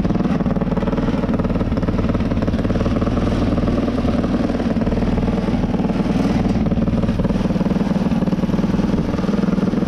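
A 250cc single-cylinder air-cooled motorcycle engine fitted in a ride-on lawn mower, running steadily, freshly kick-started, through a short homemade upright exhaust stack. The owner notes some air leaking in at the homemade intake manifold.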